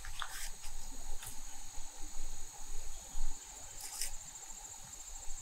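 Woodland insect chorus: a steady high-pitched trilling that takes on an even pulsing rhythm about four seconds in, with a few short clicks over it.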